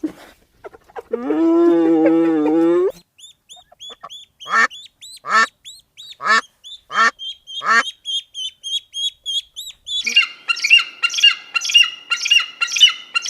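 A succession of animal calls, mostly birds. First comes one long, wavering pitched call lasting about two seconds. Then a run of short squawks over high, quick chirps, and from about ten seconds in a dense, fast chatter of many repeated calls.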